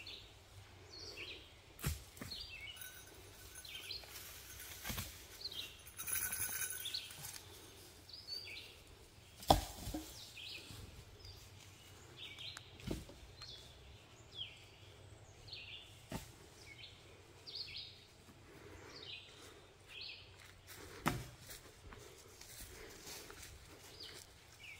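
Small woodland birds chirping, with many short high calls repeating through quiet outdoor ambience. A few scattered thumps of footsteps on the dirt forest trail come through, the loudest about nine and a half seconds in.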